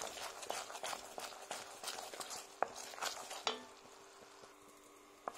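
Wooden spoon stirring boiling sugar-and-water syrup in a stainless steel pot, clicking and scraping against the metal, over the fizzing of the bubbling syrup as it cooks down toward caramel. The stirring stops about three and a half seconds in, leaving only the quieter bubbling. A faint steady hum runs underneath.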